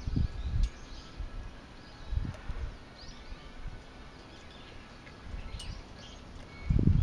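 Faint bird chirps over outdoor background noise, with a few short low rumbling bursts: one at the start, one about two seconds in, and a louder one near the end.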